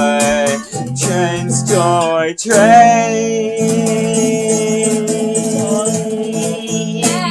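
Song with acoustic guitar strumming and a voice singing a wavering, wordless line, then holding one long note from about three seconds in.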